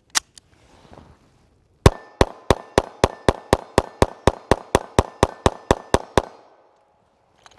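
A sharp click just after the start. Then a Caracal EF Quick Sight 9mm pistol fires a steady, evenly paced string of about eighteen shots, roughly four a second, with no stoppage.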